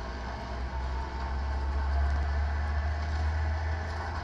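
Truck engine running with a steady low rumble that swells a little in the middle.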